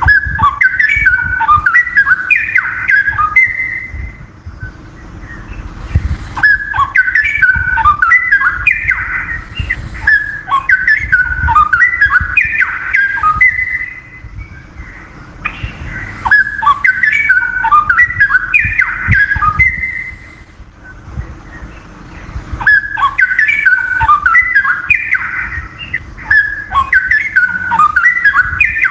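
Straw-headed bulbul (cucak rowo) singing loud song phrases: rapid runs of clear whistled notes jumping up and down in pitch. The song comes in four bouts of several seconds each, with short pauses between.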